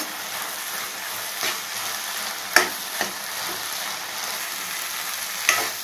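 Chopped okra with tamarind juice and sambar powder sizzling in a pan while being stirred, with a few sharp knocks against the pan, the loudest about two and a half seconds in.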